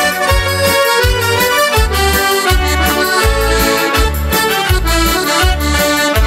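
Accordion playing an instrumental folk tune, a sustained melody over a steady oom-pah bass beat.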